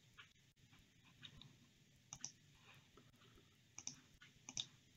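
Faint computer mouse clicks: a few short, scattered clicks, several in quick pairs.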